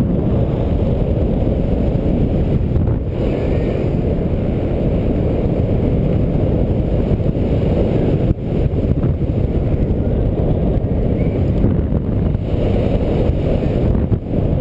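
Airflow of a paraglider in flight rushing over the pilot-mounted camera's microphone: a steady, low wind noise that dips briefly three times.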